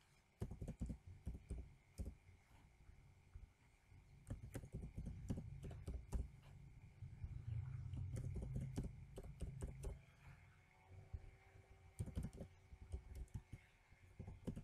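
Typing on a computer keyboard: short, irregular runs of keystrokes as numbers are entered digit by digit, with a low rumble swelling in the middle.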